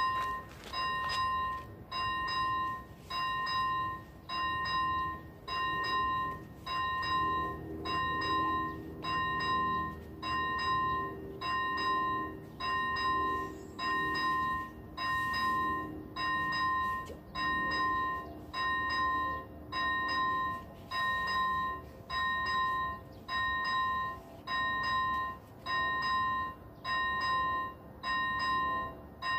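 Railway level-crossing warning bell ringing, an electronic ding repeating evenly just under once a second, each ding held briefly. It is the crossing's signal that a train is approaching.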